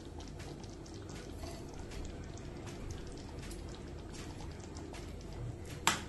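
Thick gram-flour chutney simmering in a steel kadai: faint, irregular popping of bubbles over a steady low hiss. Near the end a metal spoon knocks once, sharply, against the pan as stirring starts.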